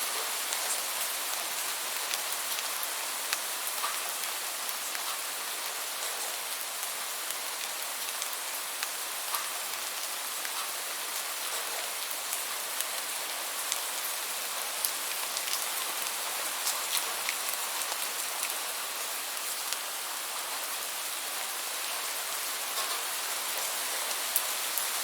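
Steady rainfall, an even hiss of rain with scattered distinct drops landing close by.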